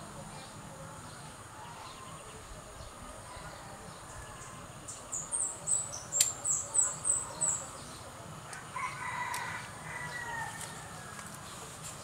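Birds calling: a quick run of about eight high, falling chirps midway, then a lower drawn-out call of about two seconds, over steady outdoor background. A single sharp click sounds among the chirps.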